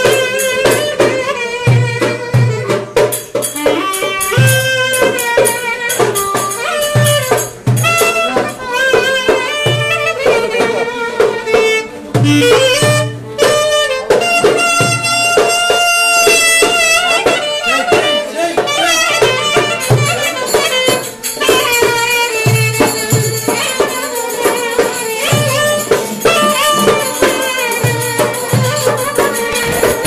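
Live Turkish folk dance music from a small band: clarinet and violin playing the melody over regular darbuka (goblet drum) beats.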